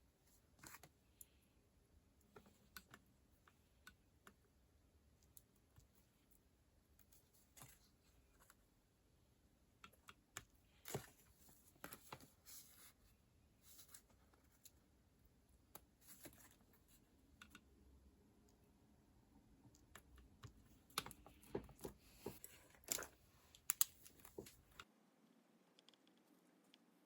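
Scattered soft clicks, taps and light paper rustles from hands working on a paper planner and its stationery, with a busier run of sharper clicks near the end before the handling sounds stop.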